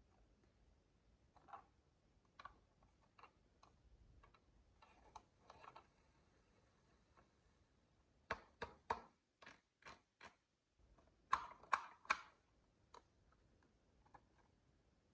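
Hard, sharp clicks of glass marbles knocking on a HABA wooden marble run. A few single clicks come first, then a quick run of about seven clicks, then a louder cluster of three or four.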